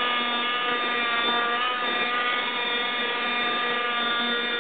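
Ported 29cc Zenoah two-stroke engine on a Go-Ped scooter held at high, steady revs with slight wavering, spinning the hard rear tire against the pavement in a burnout.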